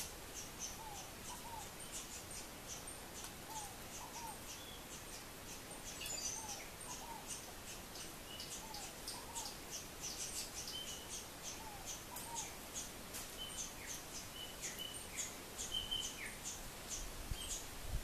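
Wild birds chirping: rapid short high chirps throughout, a short low note repeating about once a second, and a few clearer whistled notes in the second half. A low rumble comes in near the end.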